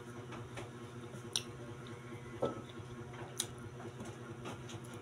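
Soft chewing and mouth sounds while eating, with a few sharp clicks about a second apart, over a steady low hum.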